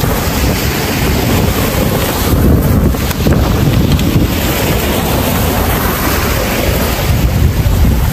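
Sea waves breaking and washing over shoreline rocks, with wind buffeting the microphone in a steady low rumble.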